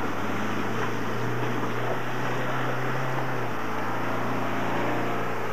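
Off-road 4x4's engine running as it drives through a shallow stream, with water splashing and rushing around it. The engine note rises a little about a second and a half in and drops back about halfway through.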